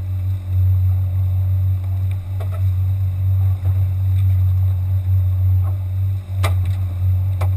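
Small outboard motor on a fishing boat running steadily, a loud low rumble with a wavering level. Two sharp knocks come near the end.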